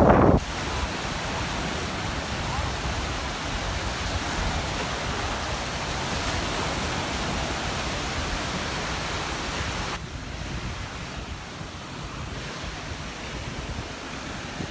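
Surf washing on the beach: a steady rush of breaking waves that falls quieter about ten seconds in.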